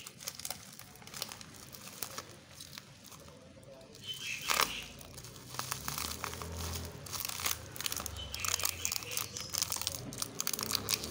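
Plastic bubble wrap crinkling and crackling as it is handled and pulled open around a bottle. The crackles are sparse for the first few seconds and come thick and fast from about halfway on.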